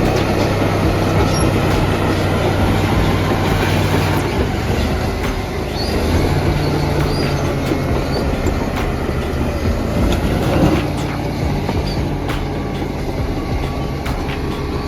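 Crawler bulldozer working: its diesel engine running under load, with the steel tracks clanking and squealing.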